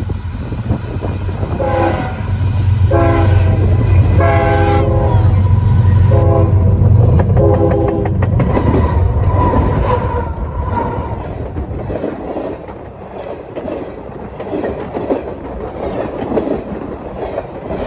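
A GE Evolution Series (GEVO) diesel locomotive blowing its horn about five times in the first eight seconds, over the steady drone of its engine. After that the freight cars roll past with a clickety-clack of wheels on the rails.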